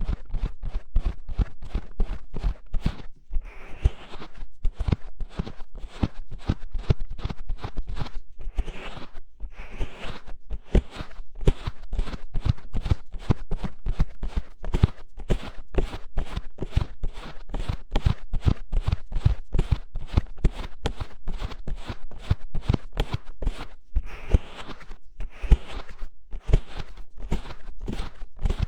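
Hands cupping and rubbing over an ASMR microphone's ears: rapid, muffled pats, about three a second, with a few brushing swishes.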